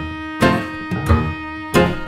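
Acoustic instrumental music: a plucked note falls about every two-thirds of a second over a held low bowed-string tone.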